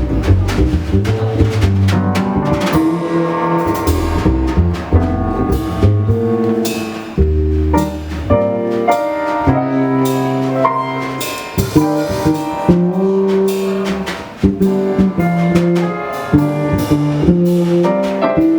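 Jazz quintet playing live: drum kit, keyboard and double bass with a melody line changing notes above them.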